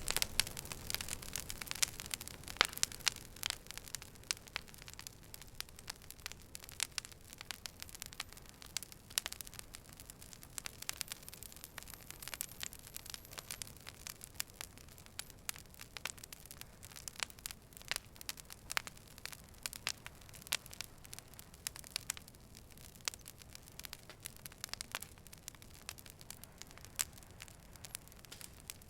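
Fire burning, crackling with irregular sharp pops and snaps over a soft steady hiss.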